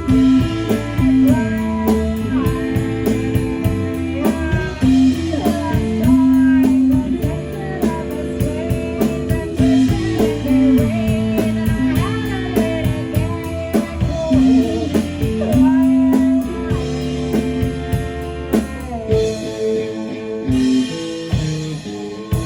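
Rock music: electric guitar and bass over a steady drum kit beat, with singing.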